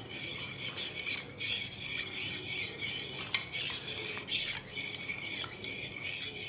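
A spoon stirring water in a stainless steel pot, scraping and clinking against the metal again and again.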